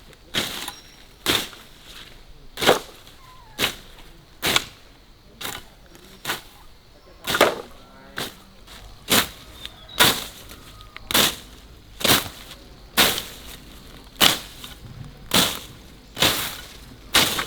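A hand blade slashing through grass and weeds in steady, even strokes, about one swishing cut a second.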